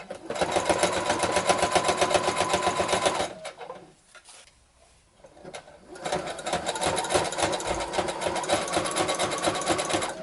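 Sewing machine stitching a seam through fabric in two runs of rapid, even needle strokes, with a pause of a few seconds between them.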